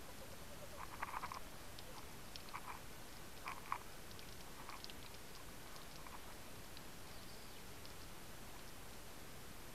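Underwater sound through a camera housing: a faint steady hiss with scattered small clicks, and a few short rasping knocks about a second in and again around three and a half seconds, as the speared gilthead bream and spear are handled against the camera.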